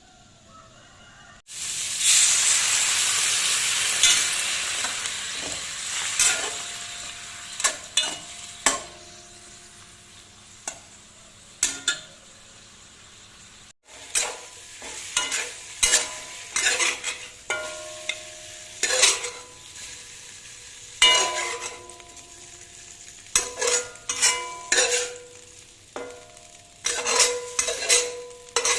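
Food tipped into hot oil sets off a loud sizzle about a second and a half in, the hiss fading over several seconds. Then a metal spatula scrapes and clanks against the pan again and again, each stroke ringing briefly, as the food is stir-fried.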